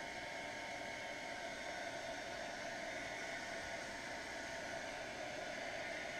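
Hair dryer blowing steadily on its low, warm setting, an even airy hiss with no change in speed.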